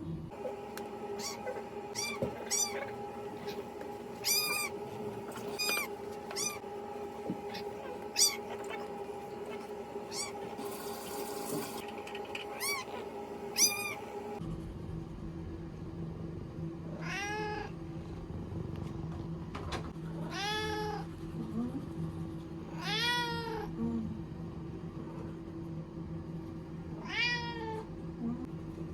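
Orange tabby cat meowing over and over: a quick run of short meows, then, after a change in the background, four longer drawn-out meows a few seconds apart. A steady hum runs underneath.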